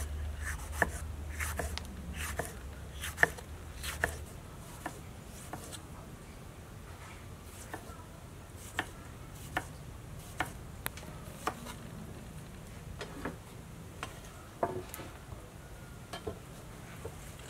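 Kitchen knife slicing tomatoes on a wooden chopping block, the blade knocking the board in irregular sharp taps that come closer together in the first few seconds and then more spaced out.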